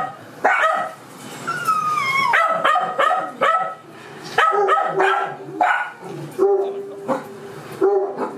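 Dog barking over and over in short yaps, with a high falling whine about two seconds in.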